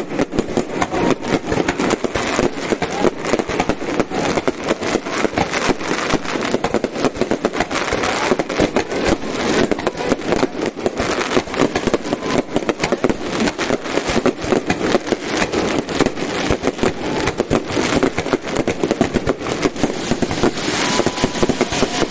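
Aerial firework shells bursting in a rapid-fire volley: dense, overlapping bangs and crackling, many a second, without a break.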